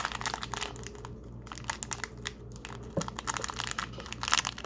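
Plastic packaging crinkling as it is handled, in irregular rustles and crackles.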